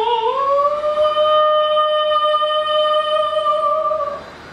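A woman singing one long operatic note that slides up in pitch just after the start, holds steady, and stops after about four seconds.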